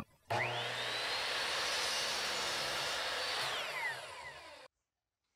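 Ryobi sliding miter saw motor spinning up with a rising whine, cutting through a plywood strip, then winding down with a falling whine. The sound cuts off suddenly near the end.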